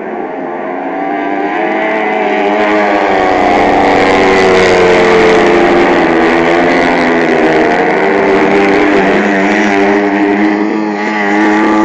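Several 500cc single-cylinder speedway motorcycle engines racing around a dirt oval, their pitch rising and falling as the riders throttle through the bends. They grow louder over the first few seconds, ease slightly near the end and then rise again.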